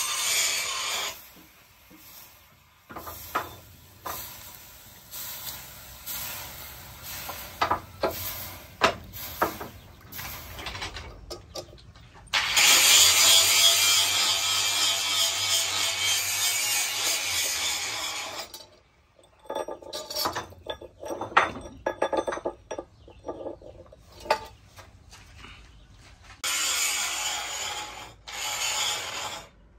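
Hot steel axe head being scrubbed and rubbed in a stone water trough: long stretches of gritty scraping with water sloshing, broken by sharp clinks and knocks of metal on stone.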